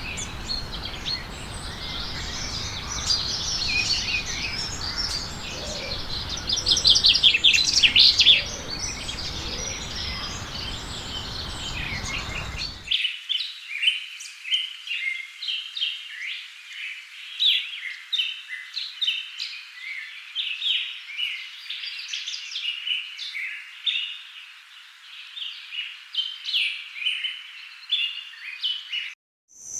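Wild birds chirping and calling. For the first part they sing over a steady rushing background noise, with a rapid trill about seven seconds in. At about thirteen seconds the background cuts away abruptly, leaving many short, quick chirps.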